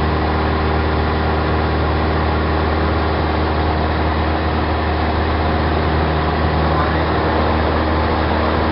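Engine and propeller of a Tupi (licence-built Piper PA-28-180) light aircraft, heard from inside the cabin: its four-cylinder Lycoming O-360 running at a steady, loud drone with a low hum of even tones.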